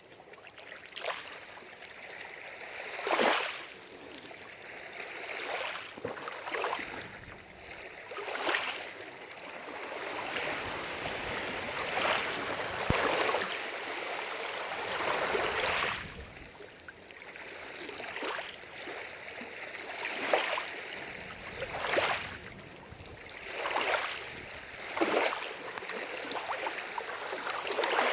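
Small waves lapping and splashing at the lake's edge, a swell of water noise every second or two.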